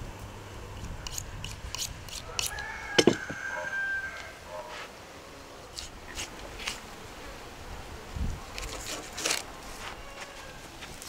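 Knife cutting into a raw beef carcass: a series of short slicing and scraping sounds, with a sharper knock about three seconds in.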